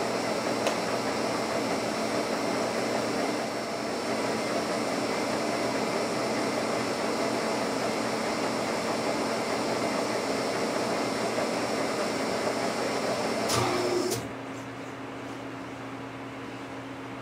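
Lucas 41 horizontal boring mill running with a steady mechanical hum and hiss. About fourteen seconds in there is a short knock, and the sound drops to a quieter steady hum.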